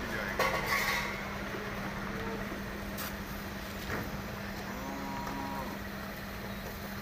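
A cow moos once, briefly, about five seconds in, over a steady low engine hum of street traffic, with a few light knocks.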